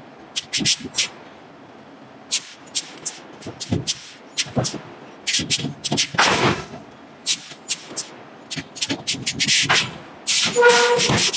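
A rapid, irregular run of loud, sharp cracks and bangs from work on the red-hot iron forging, several a second, with a short pitched tone near the end.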